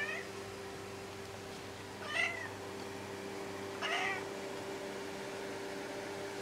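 Orange-and-white domestic cat meowing three times, short calls about two seconds apart, over a steady low hum.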